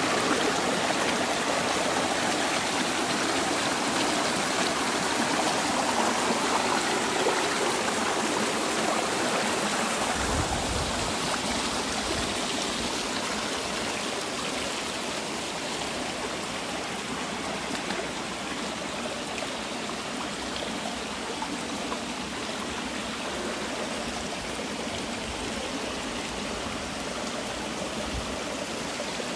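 Small mountain stream cascading over granite boulders: a steady rush of falling water that eases somewhat about a third of the way in.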